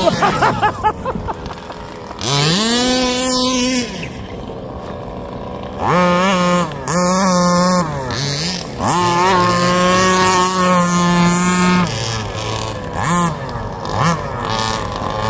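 Small two-stroke petrol engines of 1/5-scale RC Baja buggies revving hard during a race. Their pitch climbs, drops back and blips up again several times, with one long stretch held at high revs near the middle.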